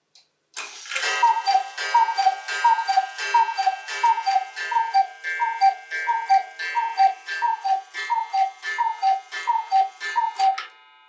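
Hand-carved Black Forest cuckoo clock striking the hour: a medium-pitched, falling two-note "cu-ckoo" call, each with a strike on its stainless-steel chime, repeated about every two-thirds of a second. The calls start about half a second in and stop shortly before the end.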